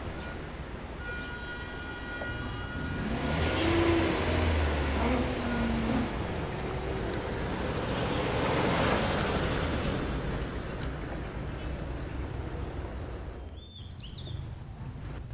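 Motor vehicles on a road: an old jeep's engine running close by and passing traffic that swells and fades between about 3 and 10 seconds in. Near the end it cuts suddenly to a few birds chirping.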